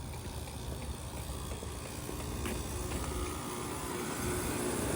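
Outdoor heat pump unit running in heat mode, a steady low mechanical hum with a steady tone coming in about two and a half seconds in and growing louder; the unit sounds cranky.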